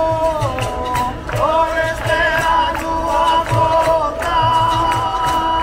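Capoeira song: several voices singing long held notes in Portuguese over a steady percussion beat.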